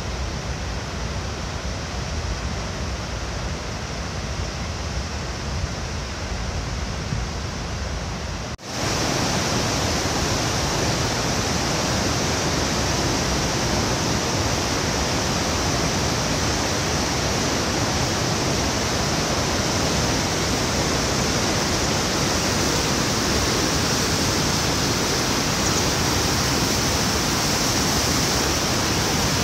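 Water rushing through a river dam's spillway and over the weir below it, a steady even noise. About nine seconds in it cuts off for an instant and comes back louder and brighter.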